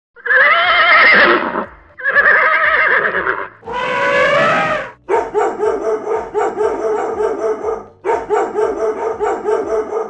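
Horse whinnying three times, each a long neigh with a wavering pitch. Then a dog barking rapidly, about four barks a second, in two runs.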